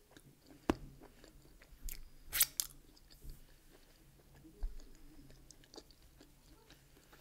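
A person chewing a mouthful of chicken, mushroom and sweetcorn pizza, with irregular wet smacks and clicks of the mouth; the loudest comes about two and a half seconds in.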